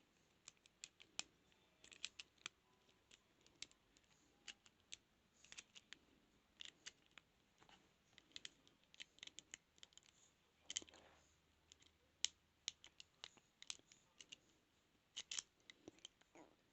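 Faint, irregular small metallic clicks and scrapes of lock picks and a tension wrench working in a transparent practice padlock, with a few louder clicks among them.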